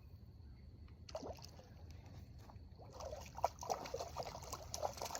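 Water splashing and trickling around a hooked white bass being landed by hand without a net; the splashes grow busier and more frequent from about three seconds in.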